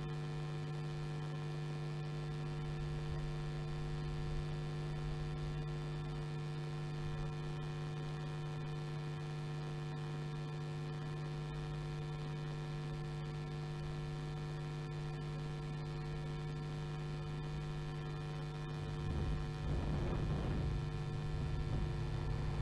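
Steady electrical mains hum on the audio feed, one low buzzing tone with fainter overtones above it. About nineteen seconds in, the engines of BMW Cup racing cars on the circuit rise in over the hum.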